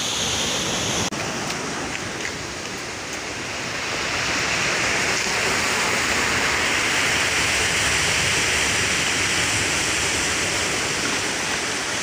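Sea surf washing on a rocky shore: a steady rushing noise that grows louder about four seconds in.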